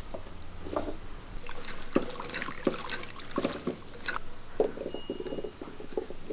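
Peeled pearl onions being washed by hand in water in a clay pot: irregular sloshing and splashing, with the wet onions knocking and rubbing together, more densely in the second half.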